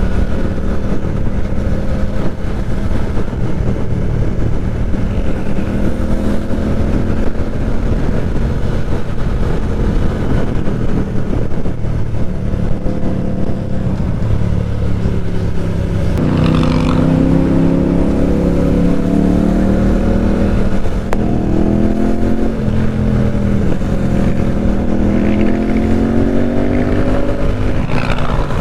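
Motorcycle engine and exhaust heard from the rider's position, running steadily at first, then accelerating from about halfway with the pitch rising in several sweeps as it pulls through the gears.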